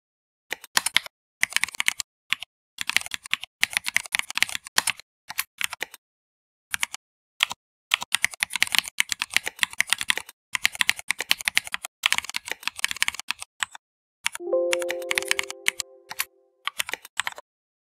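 Typing on a computer keyboard in quick bursts with short pauses. About three-quarters of the way through, a short ringing tone sounds and fades over about two seconds.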